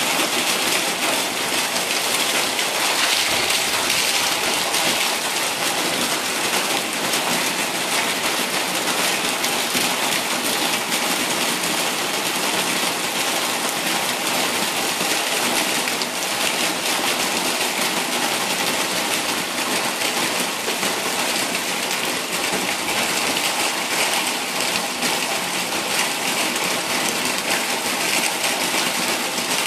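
Heavy monsoon rain coming down hard as a steady, even hiss, with runoff pouring off the roof edge.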